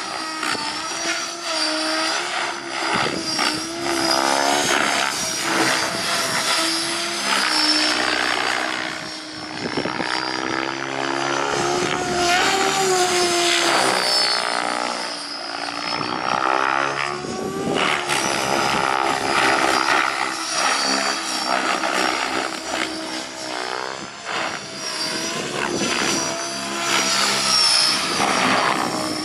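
Electric RC helicopter with a brushless motor and 713 mm main rotor blades in aerobatic flight: a steady rotor whine and blade chop whose pitch keeps rising and falling as the blades load up and the helicopter swings past.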